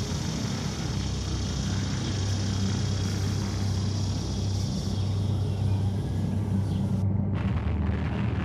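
A loud, steady low rumbling drone with a hiss above it; the hiss cuts off abruptly about seven seconds in.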